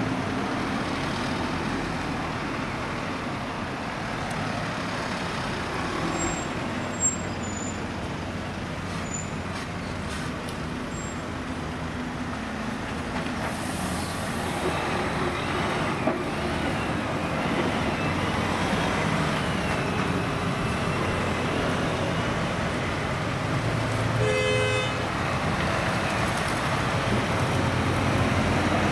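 Steady traffic noise of a convoy of Mercedes-Benz Sprinter police vans and coaches driving slowly past, engines running and tyres on the road. A short vehicle horn toot sounds about 24 seconds in.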